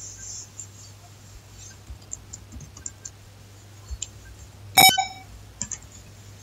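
Computer keyboard typing: light, scattered key clicks, with one much louder sharp clack that rings briefly about five seconds in.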